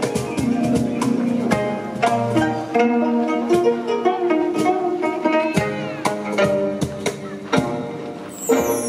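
Live gayageum ensemble: several Korean long zithers plucking a melody, with a regular beat of sharp strokes.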